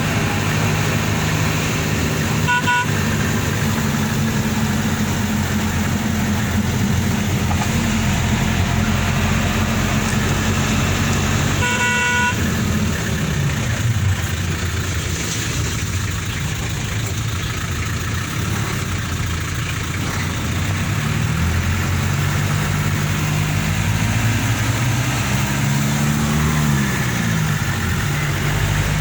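Off-road vehicle's engine running, its pitch shifting and gliding up and down near the end as the revs change. A horn toots briefly a few seconds in and again, a little longer, about twelve seconds in.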